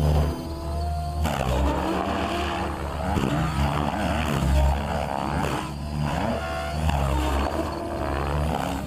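Blade 700X electric RC helicopter's motor and rotor blades whining under hard load, the pitch swooping up and down again and again as it loops and passes, over a low rumble.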